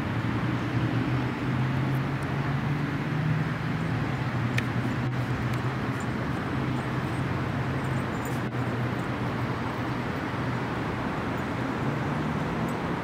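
Road traffic noise: a steady rushing with a vehicle engine's low hum that slowly rises and falls, and a few faint clicks.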